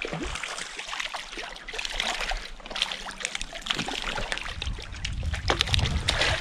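A hooked trout splashing and thrashing at the surface of a stream, then water sloshing as it is scooped into a landing net, with a low rumble over the last couple of seconds.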